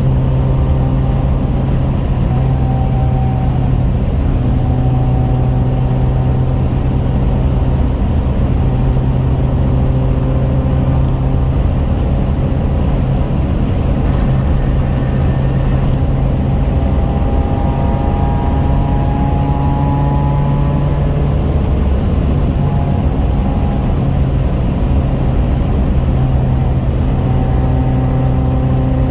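A Honda F23A 2.3-litre four-cylinder engine running steadily in the car, its pitch shifting only slightly.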